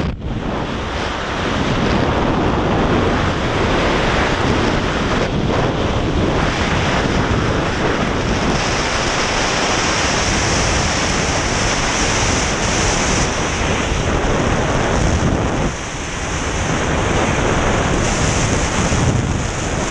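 Loud, steady rush of freefall wind buffeting a helmet-mounted camera's microphone during a skydive.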